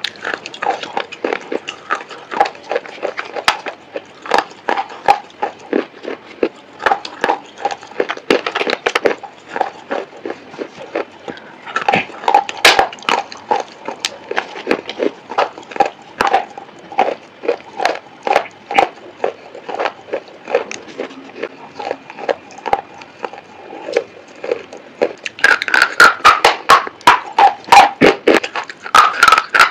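Close-up crunching of white slate pencils being bitten and chewed. An irregular run of sharp, crisp crunches throughout, coming thicker and louder near the end.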